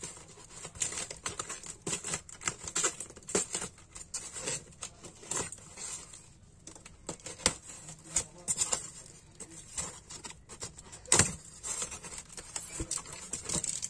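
Hands rubbing, tapping and peeling at the packing tape on a styrofoam box lid: an uneven run of scrapes and clicks, with one louder scrape a little after eleven seconds as the foam lid is pried up.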